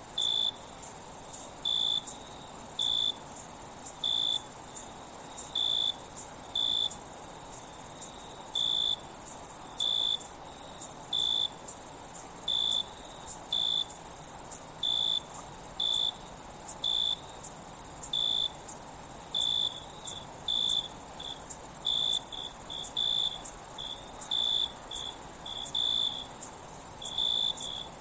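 Night insect chorus: a steady, high-pitched trill of crickets, with short cricket chirps repeating about once a second over it.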